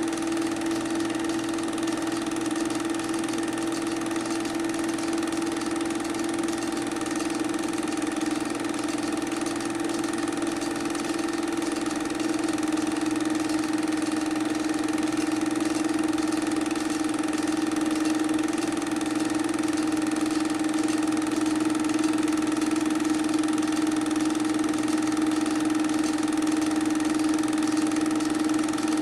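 Film projector running with a steady mechanical hum and whir.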